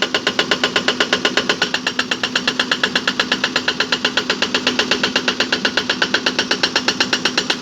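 Backhoe's hydraulic rock breaker hammering rapidly and evenly, about six blows a second, over the steady hum of the diesel engine.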